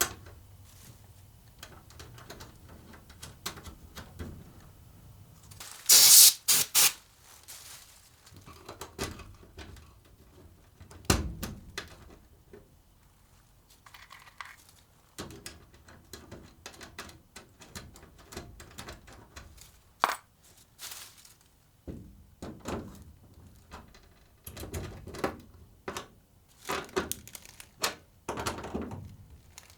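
Scattered clicks, taps and knocks of metal hardware being handled as an anchor piece is unscrewed and bolted down. A loud, sharp clatter comes about six seconds in, and another knock follows about five seconds later.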